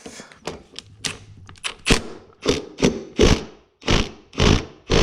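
Impact wrench hammering at the tight nut on the gear of a Yamaha RD50 engine, fired in about seven short bursts in the second half, each a brief rattle. A few light clicks come before them.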